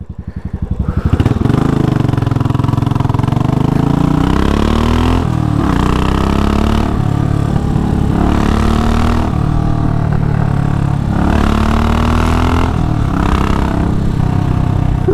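Royal Enfield Classic 500 single-cylinder engine with an aftermarket exhaust, thumping at low revs and then pulling away. The pitch climbs and drops back several times as the bike is shifted up through the gears.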